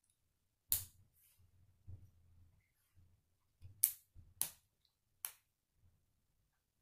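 Plastic K'nex pieces clicking as a rod and connector are snapped onto the frame by hand: a sharp click about a second in, then three more in quick succession past the middle, with faint handling rustle between.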